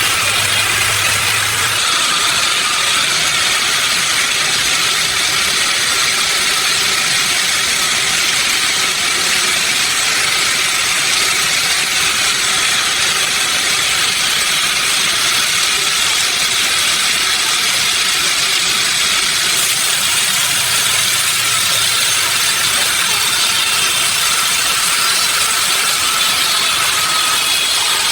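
Sawmill machinery running steadily: a loud, even mechanical noise with a high-pitched hiss, changing slightly in character a couple of times.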